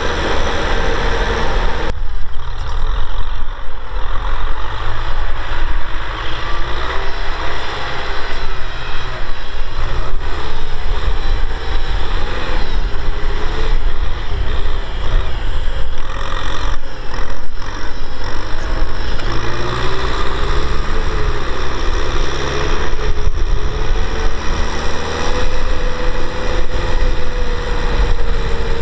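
Kubota M6040SU tractor's diesel engine running hard while pulling a disc plough through dry soil, its note wavering up and down under the changing load.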